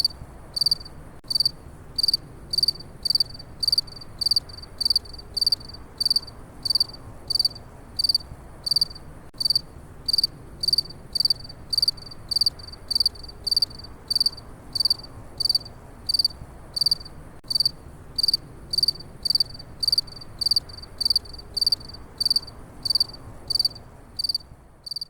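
A single cricket chirping in short, evenly spaced high-pitched chirps, roughly two to three a second, over a faint low background hiss. The sound cuts off abruptly at the end.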